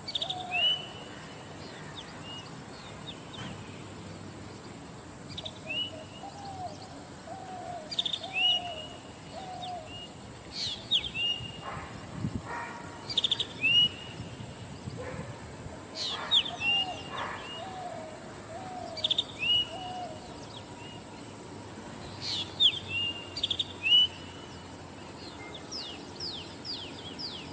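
Zitting cisticola and other birds calling: clusters of short, sharp, high chirps every few seconds, and a lower series of rising-and-falling notes several times. A faint steady high hiss runs underneath.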